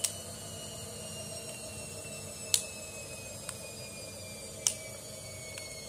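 A folding black fidget cube clicking as its hinged blocks are flipped and snapped together by hand: a few sharp clicks spread a second or more apart, three of them loud.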